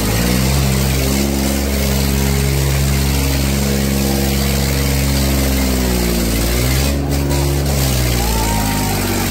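Tractor diesel engine running hard under heavy load, throbbing steadily. Its pitch sags about a second in and again around six and a half seconds, then recovers each time as the engine labours in a pulling contest.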